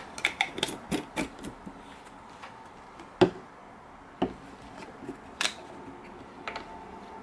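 Small edge-paint jars and their screw lids handled on a work board. There is a quick run of clicks and taps as a jar is capped, then a few separate knocks, the loudest about three seconds in, as the jars are set down and another is opened.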